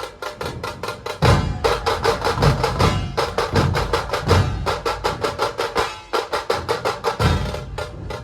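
Dhol-tasha ensemble playing: rapid, sharp tasha strokes over heavy, booming dhol beats, getting louder about a second in.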